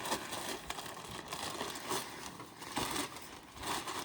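A plastic bag of garden soil rustling and crinkling as it is handled and emptied into a raised bed. The sound comes on and off unevenly.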